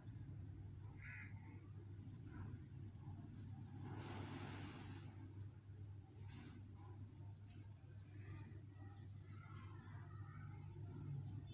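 A bird chirping over and over, a short high call about once a second, over a faint steady low hum. A brief rush of noise sounds about four seconds in.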